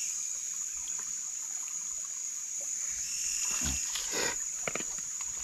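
Steady high-pitched chorus of night insects, with a brief cluster of short louder sounds about three and a half seconds in.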